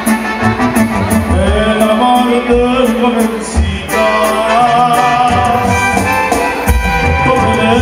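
Live Mexican ranchera music: a band with drums playing a steady beat under a singer's sustained, gliding melody, heard loud through the sound system of a large hall.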